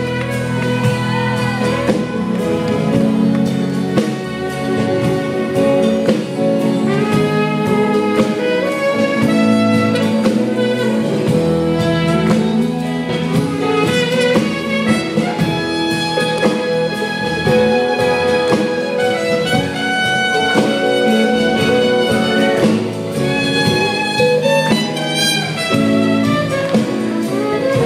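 Live band playing an instrumental passage of the song, with a lead instrument carrying a moving melody over sustained chords.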